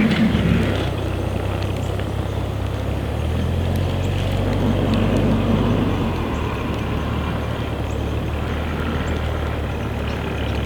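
2011 BMW 335i's turbocharged straight-six running steadily at low revs. Its low hum swells a little after about three seconds, then settles again after six.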